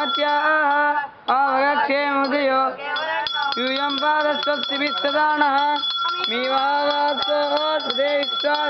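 A group of young voices singing together in unison, in sung phrases with short breaks about a second in and near six seconds. A steady high ringing tone runs underneath.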